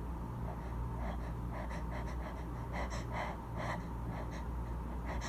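A woman's quick, shaky gasps: about a dozen short catches of breath in a row, starting about half a second in. They are the build-up of a sneeze she is trying to hold back while a feather tickles inside her nostril.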